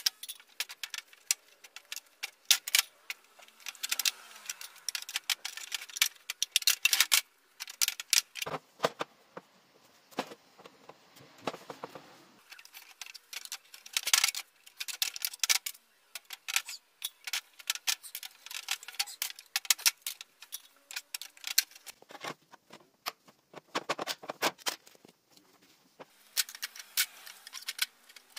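Side cutters and aviation snips clipping through the moulded hard-plastic dividers of a tool case: an irregular run of sharp clicks and snaps with short pauses, and a few seconds of denser, rougher cutting noise near the middle.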